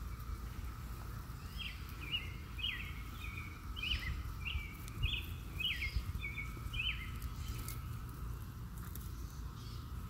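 A steady, even hum from a chorus of Brood X periodical cicadas. A songbird sings a run of about ten short chirping notes from about a second and a half in to about seven seconds, over a low rumble.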